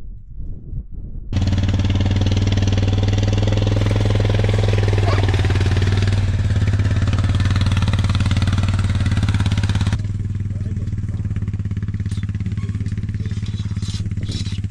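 ATV engine running steadily as it drives, starting abruptly about a second in and dropping somewhat in level about two-thirds of the way through. A few short rattling clicks come near the end.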